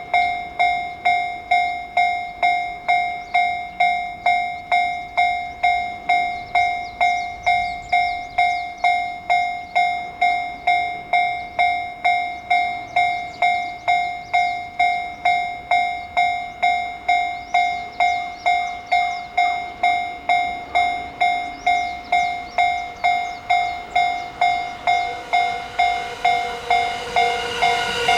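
Japanese railway level crossing warning bell ringing steadily, about two strokes a second, each stroke a single ringing tone that fades quickly. Near the end the noise of an approaching train rises beneath it.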